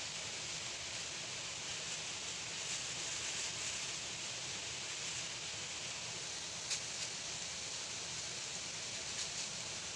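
Pot of coconut-milk vegetable soup simmering on the stove: a steady hiss, with a few faint clicks or pops, one sharper about seven seconds in.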